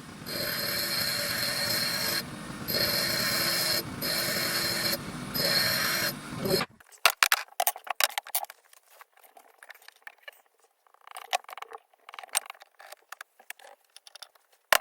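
Shaping a homemade chisel: a grinding noise with a steady high whine runs in spurts of one to two seconds with short breaks and stops about six and a half seconds in. After that come scattered sharp taps and scrapes.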